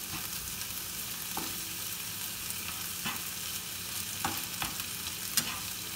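Shrimp, green chile, onion and garlic sizzling in olive oil in a nonstick frying pan, stirred with a spatula that gives a few sharp clicks against the pan.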